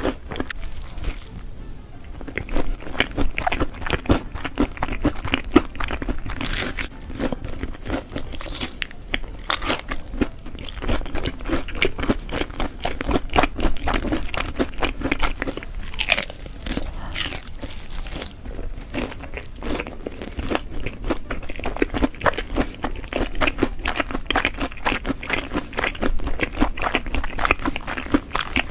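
Close-miked eating: crunchy bites and continuous chewing, a dense run of crackly clicks throughout.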